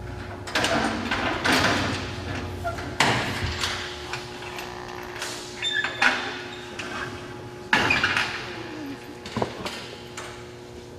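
A series of sudden rustling and knocking noises, about half a dozen, each fading over a second or so, over a steady low hum.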